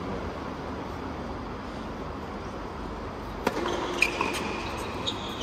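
Hushed tennis stadium, then a point begins: sharp pops of the ball off rackets and the hard court, the first about three and a half seconds in and more in quick succession near the end.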